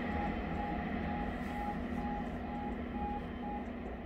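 Diesel multiple unit train running away from the station, its rumble fading steadily, with a short beep repeating about twice a second that stops near the end.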